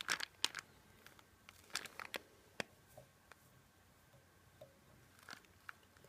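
Faint, irregular clicks and rustles of fingers handling thread and dubbing on a hook held in a fly-tying vise, with a small cluster of ticks at the start and another near the end.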